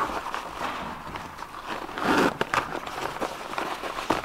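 Nylon fabric of an automatic inflatable life jacket rustling as it is folded and tucked in by hand, with a louder rustle about halfway through.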